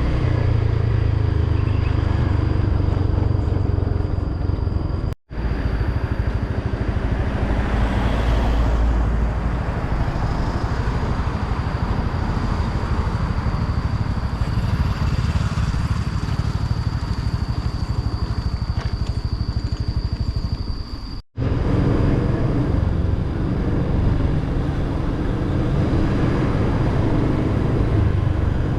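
Motor scooter running on the move, a steady low engine rumble with wind rushing over the microphone. The sound cuts out abruptly for a moment twice, about five seconds in and about 21 seconds in.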